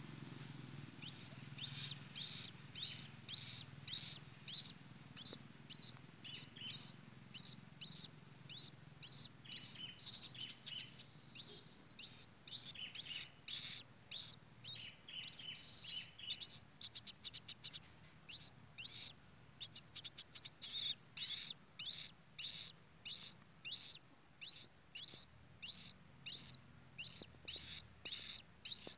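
A bird chirping steadily with short, high, slightly falling notes, about two a second. A second, lower chirping joins in for several seconds in the middle.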